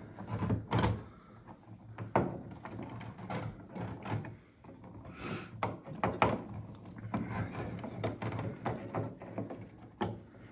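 Irregular knocks, clicks and scraping as wires and light switches are pushed and shuffled into a wall electrical box, with a brief rustling scrape about halfway through.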